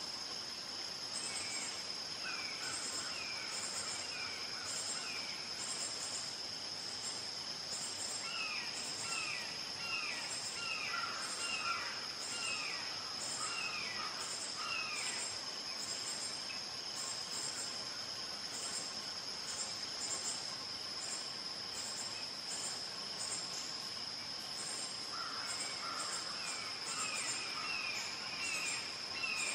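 Insects buzzing steadily, a constant high tone with regular high chirps over it. Over this, a distant bird gives runs of short, downslurred calls, about two a second: near the start, through the middle, and again near the end.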